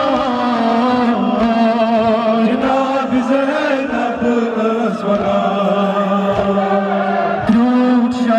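A male voice singing a Kashmiri noha, a Muharram lament, into a microphone and out through a loudspeaker, in long wavering notes over a steady low held note. Other men's voices chant along.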